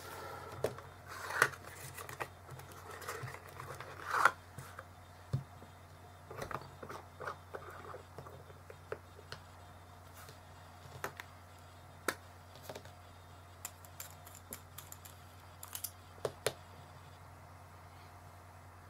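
Scattered clicks, taps and short rustles of hands handling a small cardboard ink box, a glass ink bottle and its cap, and the parts of a fountain pen on a desk. The two loudest clicks come about one and a half and four seconds in, and the sounds thin out near the end.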